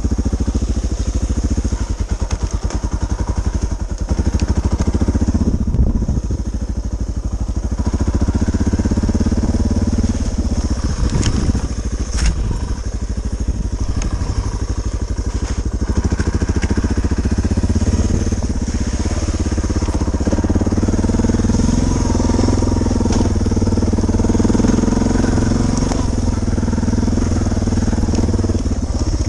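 Suzuki DR650's single-cylinder four-stroke engine running under way, its note rising and falling with the throttle, with a couple of sharp knocks about eleven to twelve seconds in.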